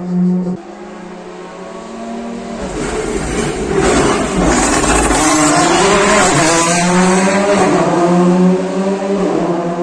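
R5 rally car's turbocharged four-cylinder engine at full throttle, growing louder as it approaches and loudest from about four to nine seconds in. The pitch rises and falls with throttle lifts and gear changes as it passes.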